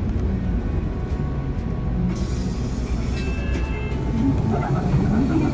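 City bus running, heard from inside the cabin: a steady engine and road rumble. A hiss starts about two seconds in, and brief high tones sound near the middle.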